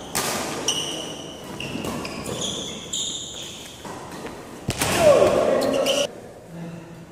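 Badminton rally: sharp racket strikes on the shuttlecock and sneakers squeaking in short high chirps on the court floor, with a louder burst of sound and voices about five seconds in.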